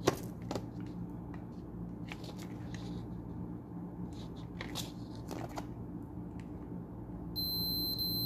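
Multimeter continuity buzzer giving one steady high beep lasting about a second and a half near the end, as the test probes bridge the joints of a freshly soldered replacement Zener diode: the circuit conducts. Before it, light clicks and taps of the probe tips on the circuit board.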